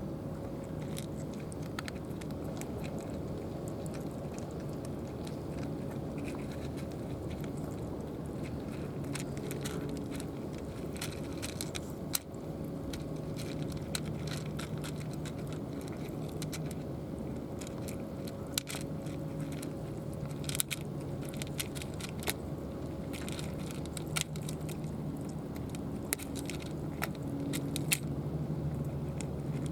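A cat crunching dry food in scattered sharp clicks and crackles, over a steady low hum.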